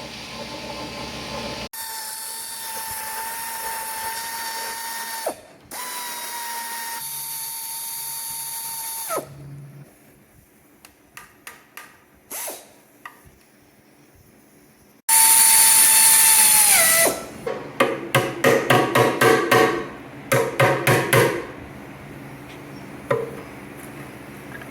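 Power drill spinning bolts out during an engine teardown. It gives two steady whines of a few seconds each, then a quiet stretch with light clicks. After that comes a louder run whose pitch drops as it slows, followed by a quick string of short trigger bursts, about three or four a second.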